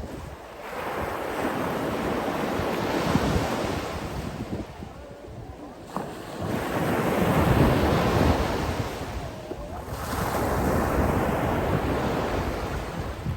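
Sea waves washing in one after another: three swells of rushing surf, each building and falling away over three to four seconds.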